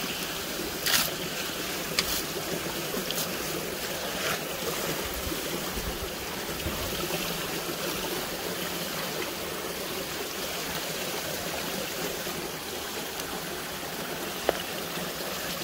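Creek water rushing and splashing over the screened intake box of a micro-hydro turbine, as a hand sweeps wet leaves and debris off the screen. A few short crackles and splashes come in the first few seconds, and there is a sharp click near the end.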